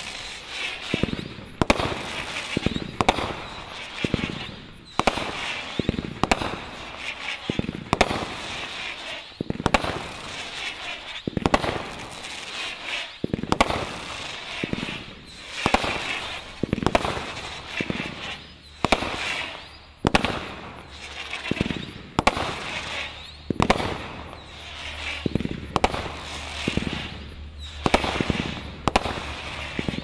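A Parrots' Prattle 36-shot 500 g consumer fireworks cake firing shot after shot, about one a second. Each shot is a sharp bang followed by a hissing crackle from the burst.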